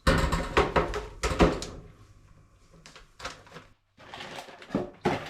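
Clattering knocks of kitchen things being handled and moved, a dense cluster in the first second and a half, then a few more scattered knocks near the end.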